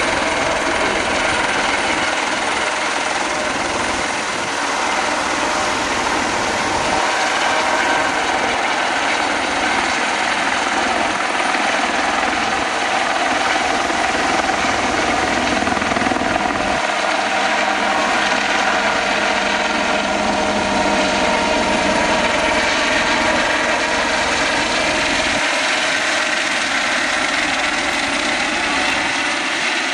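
Light helicopter flying close by: steady rotor and turbine noise with a constant whine.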